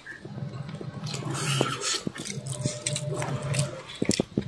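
A metal utensil scraping and tapping through fried rice, with scattered clicks, over a steady low hum.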